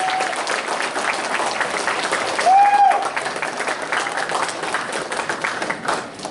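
Audience applauding with many hands clapping, and a single whooping cheer about two and a half seconds in. The clapping thins out toward the end.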